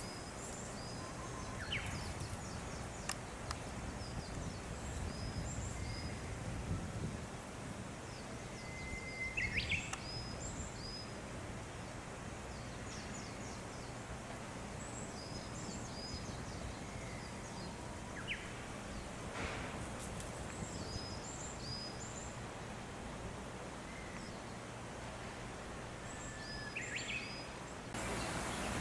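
Wind rustling through the treetops, with small birds chirping over it in short, high notes that repeat again and again, and a few sharper, louder calls.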